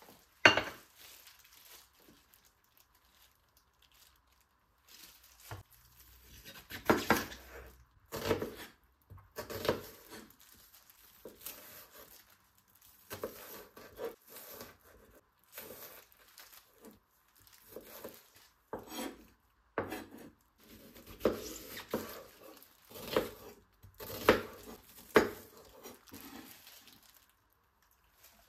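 Kitchen handling sounds: dishes and utensils knocking and scraping in short, irregular bursts, with some rustling.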